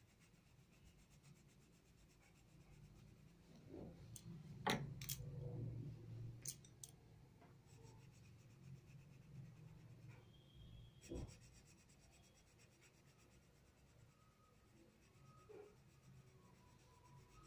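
Coloured pencil shading on workbook paper: faint, soft scratching strokes, with a few light clicks about four to seven seconds in and a single knock about eleven seconds in.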